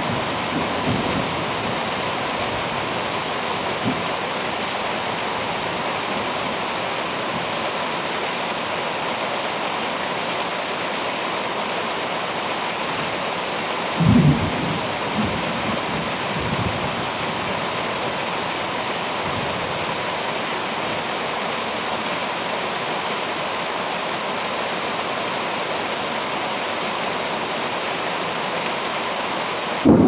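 Heavy rain pouring steadily onto leafy garden plants and ground, a dense even hiss. A brief low rumble comes about halfway through.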